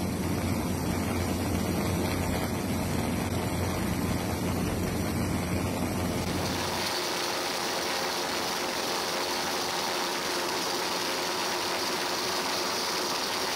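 Steady aircraft engine noise heard from on board: a low drone that gives way about six and a half seconds in to a thinner, hissing noise with little low end.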